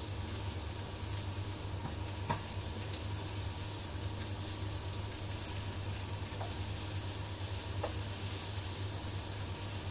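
Food sizzling in a frying pan on a gas stove as it is stirred with a spatula, with a few light knocks of the spatula against the pan, the clearest about two seconds in. A steady low hum runs underneath.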